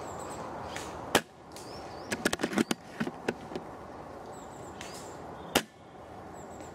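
Two sharp shots from a Tokyo Marui VSR-10 G-Spec spring-piston bolt-action airsoft sniper rifle, about four seconds apart. Between them comes an uneven run of quick mechanical clicks as the bolt is worked to recock.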